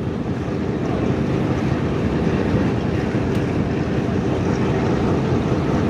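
Boeing B-17 Flying Fortress's four Wright R-1820 Cyclone radial engines running steadily after start-up.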